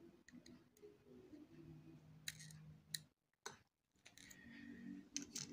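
A few faint, scattered small clicks of a plastic spudger prying the flex-cable connectors off the main board of a Samsung Galaxy A20 (SM-A205) phone.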